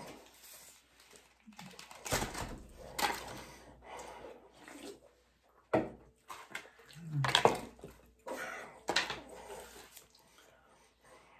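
Eating and drinking sounds at a table: scattered rustles of paper wrappers and handling of food, a sharp click near the middle, then a man drinking from a can with gulps.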